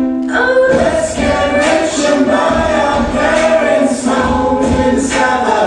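Recorded pop song playing: many layered voices singing together in a choir-like blend. They come in about half a second in, after a held note.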